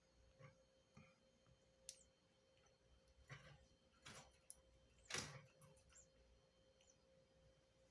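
Near silence broken by a few faint, scattered clicks and short rustles, the loudest a little past the middle.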